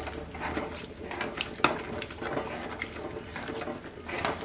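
A ladle mashing and stirring thick cooked horse gram in a pressure cooker, scraping and knocking against the pot, with one sharper knock about one and a half seconds in.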